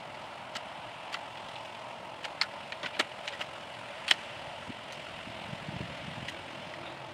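Black plastic seedling trays set down and handled on mulch, giving a handful of scattered light plastic clicks and taps, the sharpest about four seconds in. A steady outdoor background hum runs underneath.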